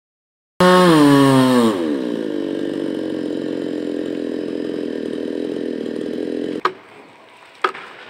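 Two-stroke chainsaw engine dropping in pitch from a rev, then running steadily before it cuts off abruptly. A sharp knock follows near the end.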